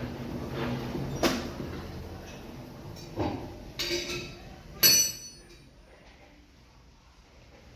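Brastemp 11 kg washing machine running with a steady hum that fades away over the first few seconds. Four sharp knocks and clunks come through it, the loudest about five seconds in.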